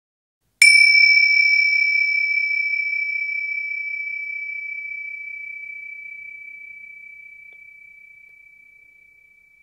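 A single high metallic chime struck once, about half a second in, ringing on one steady high note and fading slowly away over several seconds.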